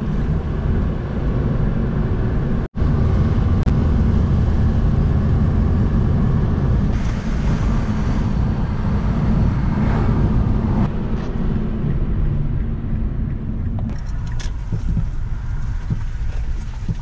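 Inside the cabin of a moving 2006 Mazda 5: steady low road and engine noise. There is a brief drop-out about three seconds in, and the rumble eases in the last few seconds as the car slows.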